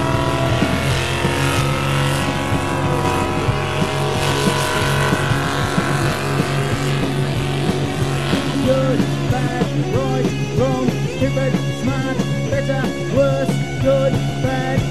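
A pulling tractor's engine running hard as it drags the weight-transfer sled, its pitch bending up and down, mixed with punk rock music. The music takes over from about ten seconds in.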